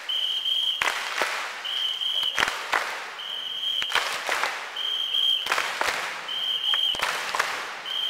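A whistle blown in a steady rhythm, one short held blast about every second and a half, each followed by a few sharp hits, over applause.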